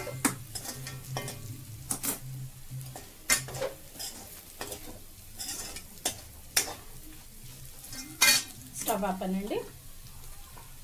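Steel spoon stirring and scraping a dry chicken fry around a metal kadai, with a light sizzle from the hot pan. Several sharp clinks and knocks of the spoon on the pan come through it, the loudest about 8 seconds in.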